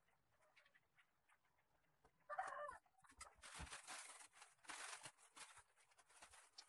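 Faint rustling of a bundle of artificial plastic ivy vines being handled, starting about three seconds in. Just before it, a short animal call.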